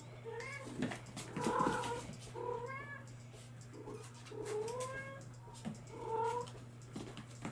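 Bengal kittens meowing, a string of about seven short calls that rise and fall in pitch, the loudest about one and a half seconds in.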